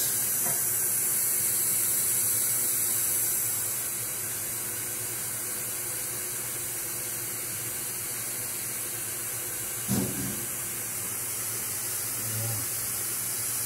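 Steady hiss, a little louder for the first few seconds, with a single knock about ten seconds in.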